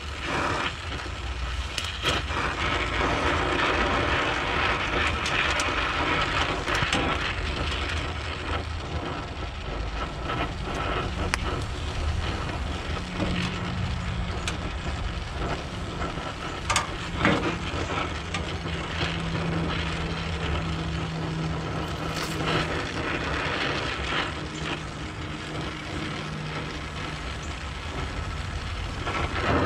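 Stick welding on a steel brace: the arc of the welding rod gives a steady crackling hiss, with a low hum joining in about halfway through.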